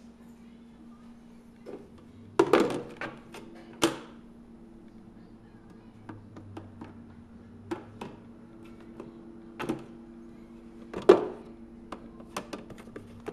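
Plastic parts of a coffee maker being handled and fitted: scattered sharp clicks and knocks, a few louder thunks about two and a half, four and eleven seconds in, over a steady low hum.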